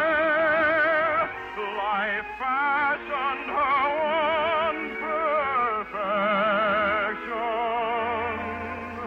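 Operatic singing with a strong, wide vibrato: long held high notes joined by gliding phrases, over a steadier musical accompaniment. Heard through the narrow, dull sound of an early-1950s broadcast recording.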